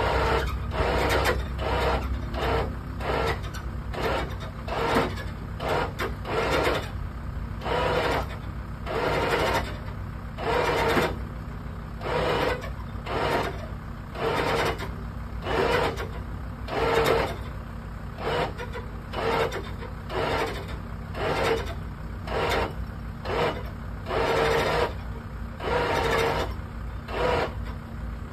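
Winch on a car trailer cranked in repeated rasping ratchet strokes, roughly one a second, dragging a car out of a barn on a chain, over a low steady hum.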